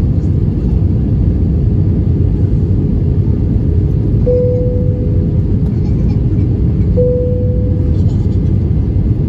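Airbus A320 cabin noise in flight: a steady low rumble of engines and airflow. Two short steady tones of under a second each sound over it, one about halfway through and one about three-quarters through.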